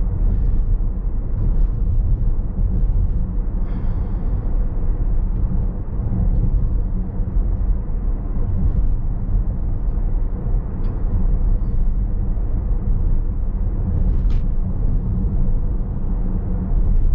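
Cabin noise of a Tesla Model S Plaid driving on a wet road in rain: a steady low rumble of tyres and road, with a few light ticks scattered through.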